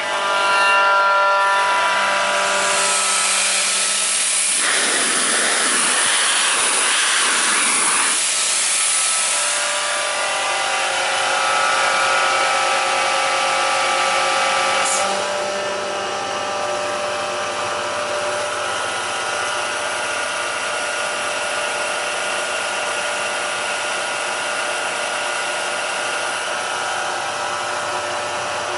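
Bauer BP25 air compressor running steadily, a mechanical hum with several steady tones. A louder rush of hiss comes between about five and eight seconds in, and the machine settles slightly quieter about fifteen seconds in.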